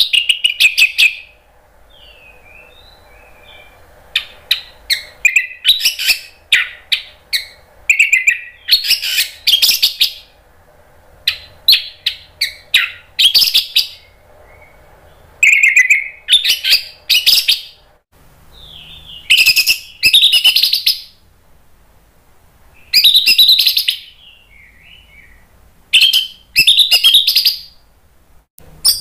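Orange-headed thrush singing loud phrases of rapid, sharp high notes. The phrases come in bursts of one to two seconds, a few seconds apart, with softer notes between them and a faint steady hum underneath.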